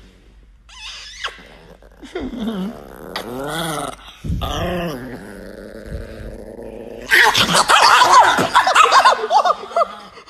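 Chihuahua growling in drawn-out rising-and-falling grumbles, then about seven seconds in breaking into a loud, frantic snarling and yapping fit that lasts a few seconds.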